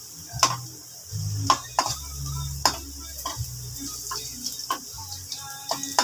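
Cooking utensil knocking and scraping against a frying pan at irregular intervals while sardines are stirred into sautéed onion and garlic, over a faint oil sizzle.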